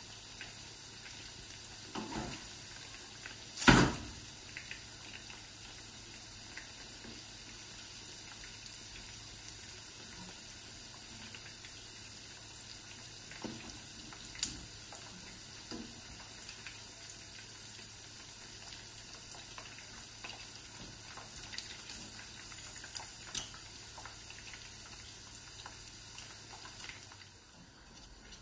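Chicken pieces frying in hot oil in a non-stick frying pan: a steady sizzle full of small crackles, with scattered clicks of tongs against the pan and one loud knock about four seconds in. The sizzle drops away near the end.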